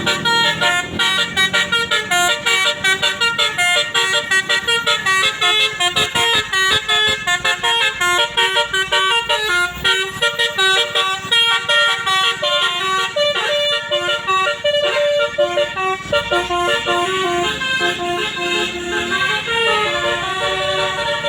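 Basuri musical air horn on a bus playing a fast telolet tune: a continuous run of short, rapidly changing notes, loud throughout.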